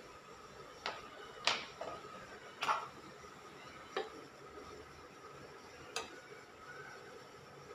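A metal fork clinks and taps against a non-stick frying pan holding ramen in a milky sauce: a handful of sharp, unevenly spaced clicks.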